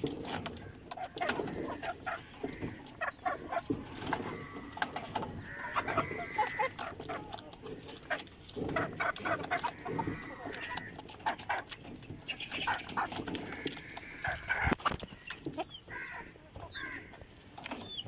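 Flock of caged farm chickens clucking and calling throughout, with a few longer drawn-out calls and many short sharp taps among them.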